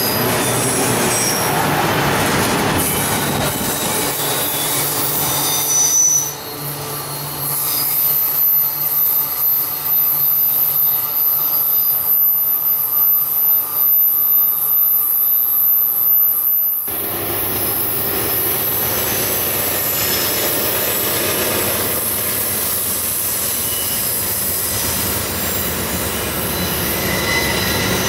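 Autorack freight cars rolling past on a curve, their wheels giving a steady high-pitched squeal. Partway through, the sound changes abruptly to a steady rumble as an Amtrak train's GE P42DC diesel locomotives approach across a steel trestle.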